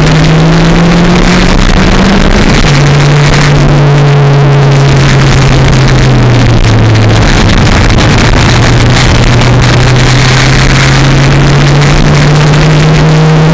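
Toyota 4E-FTE turbocharged 1.3-litre four-cylinder engine pulling under load, heard from inside the car: its note climbs, drops sharply at a gear change about two and a half seconds in, sags and breaks off around seven seconds in, then climbs slowly again. Loud road and wind hiss runs under it.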